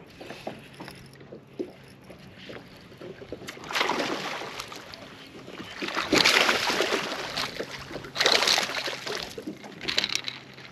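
A hooked bass splashing and thrashing at the surface beside a boat, in several loud noisy bursts of about a second each, with quieter stretches between.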